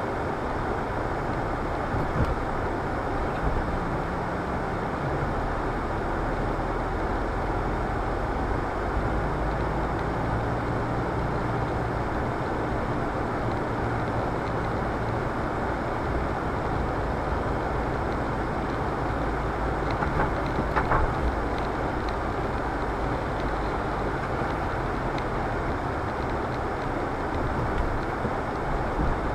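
A car moving slowly on wet pavement, heard from inside the cabin: a steady low engine rumble with the hiss of tyres on the wet surface. There is a brief louder patch about two-thirds of the way through.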